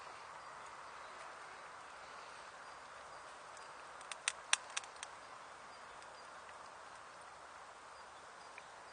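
Small tin-can hobo wood stove burning under a pot, a steady soft hiss, with a quick run of about five sharp clicks about four seconds in as a stick is pushed into the fire opening.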